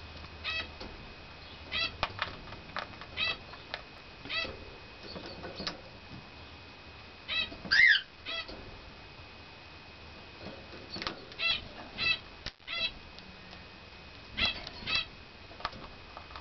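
Short, high squeaky animal calls repeating irregularly about once a second, with one louder call about eight seconds in. A faint steady high tone runs underneath.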